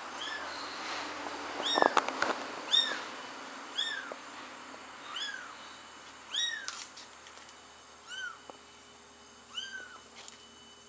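A newborn kitten mewing over and over: about nine short, high-pitched mews, each rising then falling in pitch, roughly one a second and growing fainter toward the end. A few sharp knocks about two seconds in.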